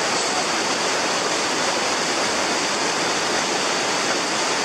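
Fast-flowing river rushing steadily, an even wash of noise that does not change.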